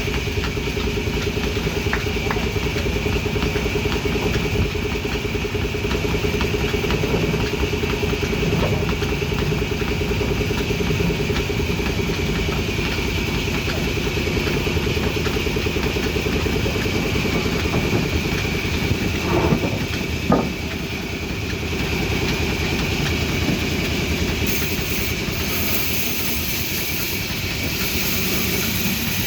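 Band saw running steadily with a continuous mechanical hum. Two short knocks come a little past the middle.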